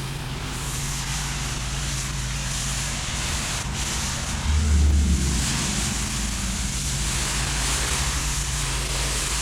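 An engine running steadily with a constant low hum and a hiss over it, swelling into a brief heavier low rumble about five seconds in.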